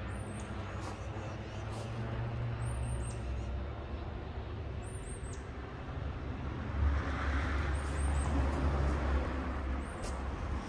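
Outdoor ambience: a steady low rumble that swells louder for a few seconds in the second half. A small bird chirps quick runs of two or three high, falling notes several times.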